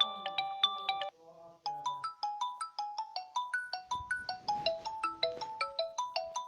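Mobile phone ringtones played back: one melody of quick notes cuts off about a second in, and after a short, quieter snatch of other tones a new ringtone melody of quick notes begins, with a low accompaniment joining about four seconds in.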